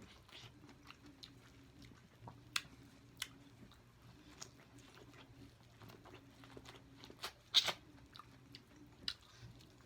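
Close-miked chewing and wet mouth smacks of someone eating sauce-coated potatoes, corn and eggs. Scattered sharp smacks come through a soft chewing sound, the loudest about two and a half, three and seven and a half seconds in.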